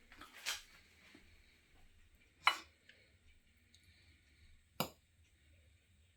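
Three short clinks of cutlery against a plate while eating, the loudest about two and a half seconds in.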